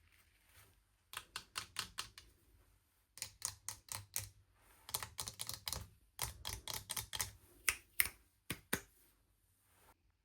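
Small hard miniature toy pieces or their packaging being handled: five bursts of rapid light clicks and taps, each about a second long, with short pauses between them.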